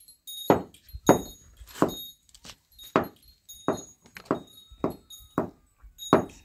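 Wooden baby cradle being rocked by hand, knocking in a steady rhythm about every half-second to two-thirds of a second, with a faint metallic jingle on each swing.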